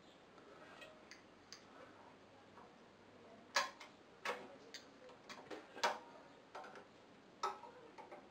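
Scattered small metallic clicks and taps as a screwdriver works at the throttle linkage spring beside a Honda GX160's carburetor. There are about ten clicks at uneven intervals, with the sharpest about three and a half seconds and six seconds in.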